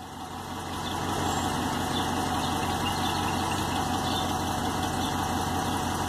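Jeep 5.7-litre Hemi V8 idling steadily, getting louder over the first second, with a light tick from an exhaust leak at the driver's-side exhaust manifold, where one bolt has broken. The engine is warm, so the tick is faint.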